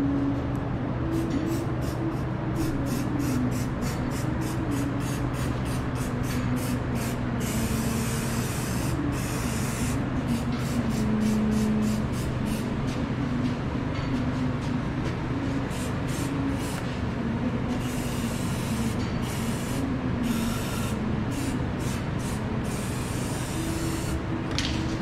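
Aerosol spray can being sprayed at a car's underbody: a quick run of short hisses, then a few longer sprays around the middle, with more short hisses later. A steady low hum runs underneath.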